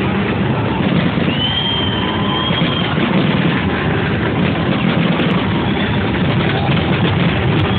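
Dense fireworks barrage, heard as a continuous rumble and crackle with no separate bangs. A high thin whistle rises about a second in and holds for about a second and a half.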